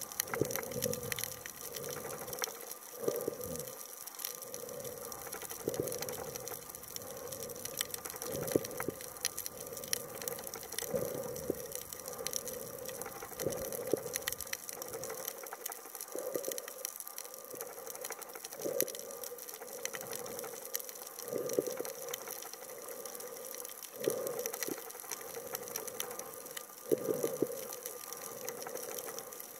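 Muffled underwater water noise picked up by a submerged camera: a rush of moving water that swells and fades about every two and a half seconds over a steady fine hiss.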